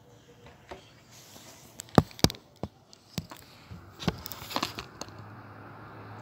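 A quick run of sharp knocks and clicks, the two loudest close together about two seconds in, followed by lighter taps and rustling: handling noise of things being moved at a shop counter.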